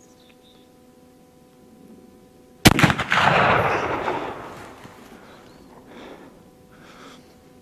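A single rifle shot from a Remington Hepburn single-shot rifle about two and a half seconds in, followed by a long echo dying away over about two seconds, then a couple of faint clicks.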